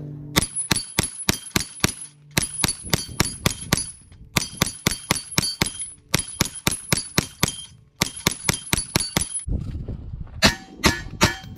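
A JP Rifles GMR-15 9mm pistol-caliber carbine fired in quick strings of about half a dozen shots each, with short pauses between strings. Steel targets clang as they are hit.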